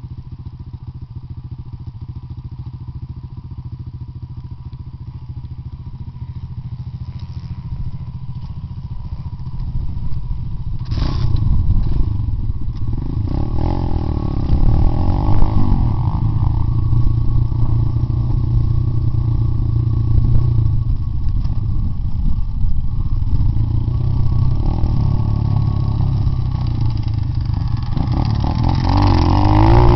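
Pit bike engine running at low revs, then growing louder about a third of the way in and revving up and down as the bike rides along a dirt trail.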